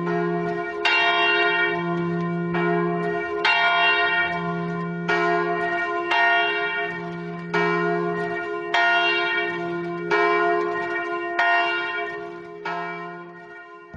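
Church bell tolling slowly: a struck stroke roughly every second and a half, each ringing on and dying away into the next.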